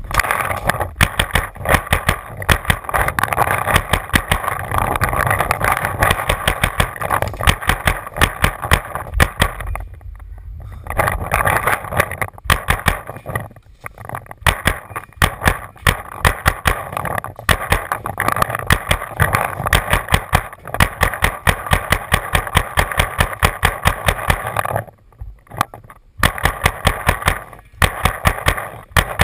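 Paintball marker firing rapid strings of shots, many a second, as suppressive fire to keep an opponent pinned down. The firing breaks off briefly about ten seconds in and again near the end.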